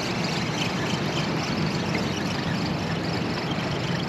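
Steady low rumble and hiss of outdoor noise, like distant engine traffic mixed with wind, without any distinct separate sounds.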